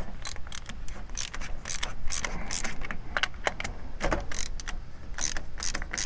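Hand socket ratchet clicking in short irregular runs, with small metal clinks, as a nut on a battery disconnect switch's terminal stud is worked loose.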